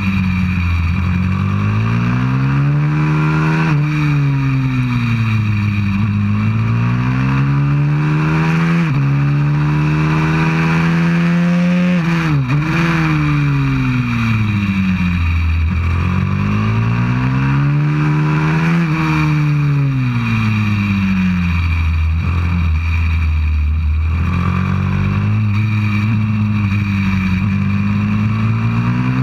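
190cc pit bike engine, a single-cylinder four-stroke, ridden hard around a track. Its pitch climbs and drops suddenly again and again as it shifts up, then sinks when the throttle is rolled off for the bends.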